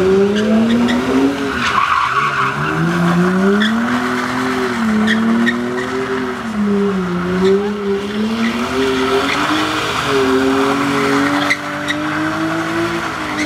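BMW 3 Series drift car's engine revving up and down over and over while its rear tyres squeal and spin, sliding the car round in tyre smoke. The revs hold steadier near the end.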